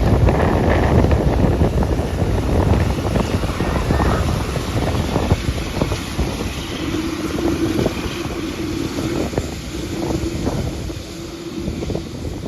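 Wind buffeting the microphone over a low, steady rumble, easing off in the second half, with a faint steady hum running through the latter part.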